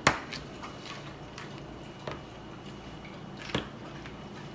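Shredded chicken being stirred with seasonings in a pot: scattered clinks and ticks of the utensil against the pot with a soft wet squish, the loudest clink right at the start and others about two and three and a half seconds in.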